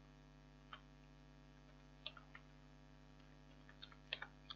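Faint computer-keyboard keystrokes, a few scattered clicks in small clusters, over a steady low electrical hum.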